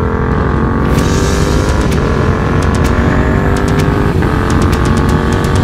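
Yamaha MT-07's parallel-twin engine running under load through a Mivv GP Pro exhaust. Its pitch climbs slowly, with two brief breaks about two and four seconds in.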